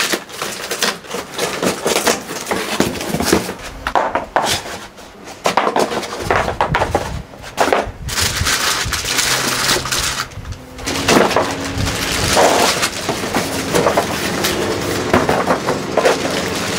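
A cardboard box being unpacked: scissors cut the packing tape, then the cardboard flaps and moulded pulp egg-tray packing rustle and knock as they are pulled out, with a plastic bag crinkling. It goes in uneven bouts with short pauses.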